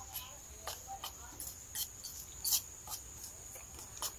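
Metal spoon stirring a thick sauce in a ceramic bowl, clinking and scraping against the bowl in irregular light clicks. A steady high-pitched insect trill runs underneath.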